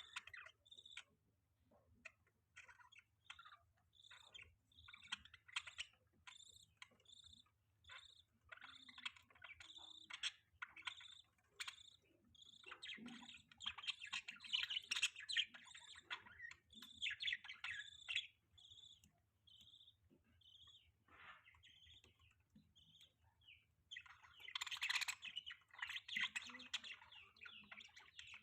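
Budgerigars chirping: a run of short, separate chirps, breaking into busier warbling chatter about halfway through and again near the end.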